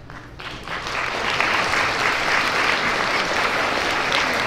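An assembly audience of schoolchildren applauding. The clapping starts about half a second in, builds within a second and then holds steady.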